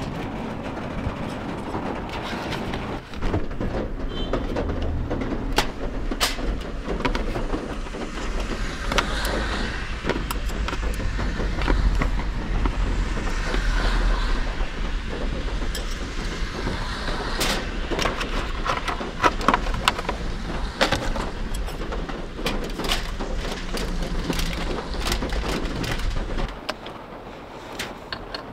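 Thin-sliced meat sizzling on a foil-lined pan over a portable gas canister stove, with sharp clicks and taps of chopsticks against the plastic tray and pan and the crinkle of foil. A low steady rumble runs underneath and drops away near the end.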